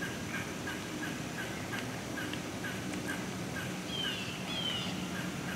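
Woodland ambience: short chirping calls repeat steadily about twice a second. About four seconds in come two quick falling whistles.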